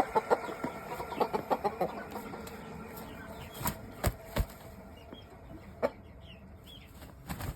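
Chickens clucking in quick runs of short notes during the first two seconds, followed by a few sharp thumps in the middle.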